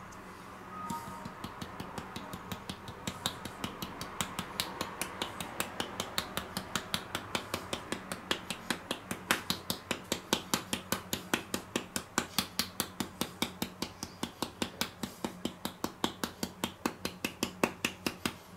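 A small plastic paprika shaker shaken rapidly over raw steaks: an even run of sharp rattling ticks, about five a second, starting about a second in.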